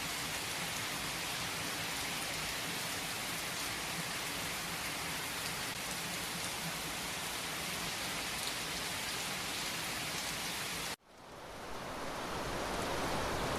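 Steady rain falling. About eleven seconds in it cuts out abruptly and fades back in.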